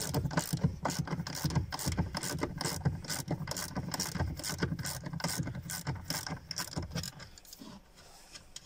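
Ratchet wrench clicking rapidly as it undoes the nuts on the rear strut's top mount, for about seven seconds before it stops.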